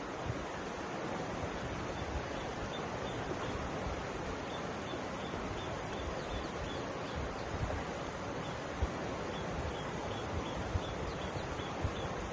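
Steady rushing of a shallow mountain river flowing over stones, with low rumbles of wind on the microphone. A faint high ticking repeats about three times a second through most of it.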